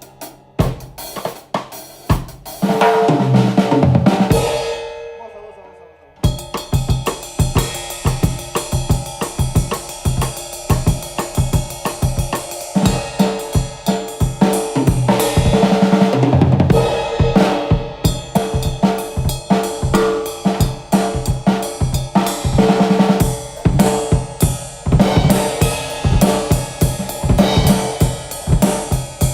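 Miked drum kit being played: a few strikes, then a ring that fades out, and from about six seconds in a steady, busy beat of drums and cymbals.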